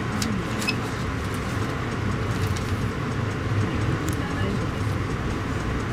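Passenger train running, heard from inside the coach: a steady low rumble, with a few faint clicks.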